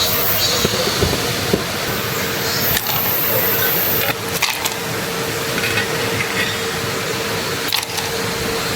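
Valley stream water running steadily, a constant rushing hiss with a few light knocks.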